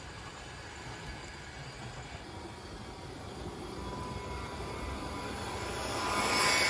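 HO-scale model trains running on the track: a steady rolling noise, then a 1939 Varney brass HO Berkshire 2-8-4 steam locomotive approaches, its motor and wheels growing louder and loudest near the end as it passes close by.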